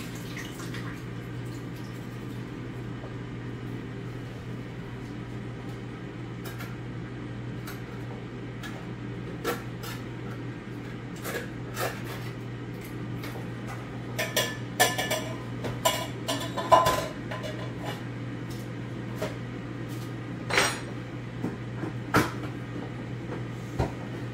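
Kitchen cookware and utensils being handled: scattered clinks and knocks of metal and dishes, busiest in the middle and thinning out near the end, over a steady low hum.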